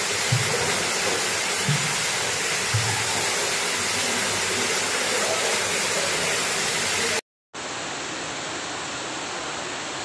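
Steady rush of a waterfall pouring into a rock pool, with a few low thumps in the first three seconds. The sound drops out for a moment about seven seconds in, then comes back as a slightly quieter, duller rush of foaming whitewater.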